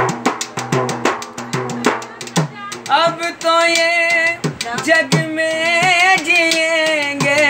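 Fast hand drumming on a metal-bodied drum. About three seconds in a man's singing voice joins it, holding long, wavering notes of a song.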